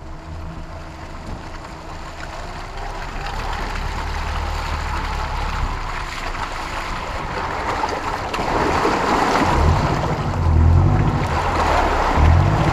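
4x4 engine driving through a deep, water-filled muddy rut, with muddy water sloshing and splashing along the body. Engine and splashing both get louder from about eight seconds in.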